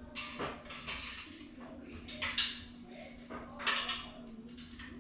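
Clinks and rattles of the white tubular metal frame of a toilet rack organizer as its pieces are fitted together by hand. They come in several short bursts, the loudest about two and a half seconds in and again just before four seconds, over a faint steady hum.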